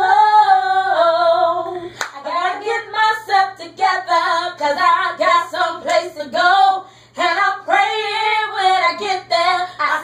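A woman singing a gospel song, holding long bending notes at first and then moving into shorter sung phrases.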